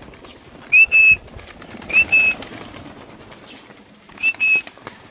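Three short high whistles, each a quick upward slide into a briefly held note, over the faint wing flapping of racing pigeons taking off.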